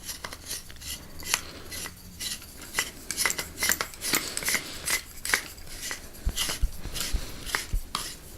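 Lightsaber hilt parts and a double-ended male threaded coupler being handled and screwed together: irregular metallic clicks and scrapes, with a few dull knocks late on.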